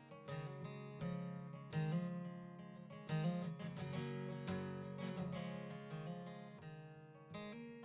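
Background music: acoustic guitar strummed in a steady rhythm, with chords struck about once a second.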